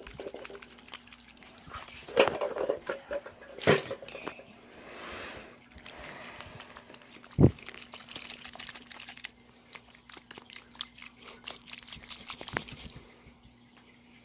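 Water sloshing inside a small water-filled plastic Poopsie Sparkly Critters toy as it is shaken to mix the slime, with a few sharp plastic knocks, the loudest about halfway through.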